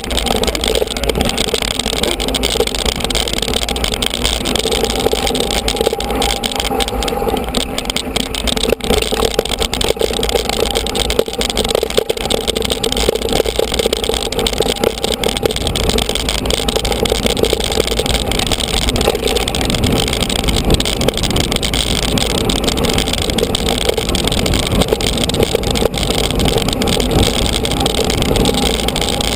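Mountain bike rolling along a gravel and dirt track: a steady rumble and rattle of tyres and bike, with wind rushing over the camera's microphone.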